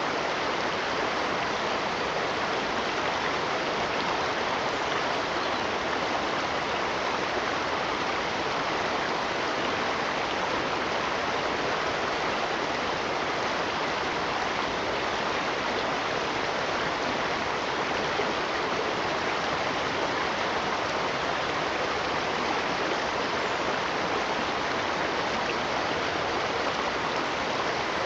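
Stream water running with a steady, even rush and no breaks or changes.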